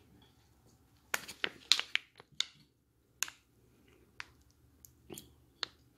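Close-miked eating: chewing with sharp crackles and clicks, bunched together a second or two in, then spread out and softer.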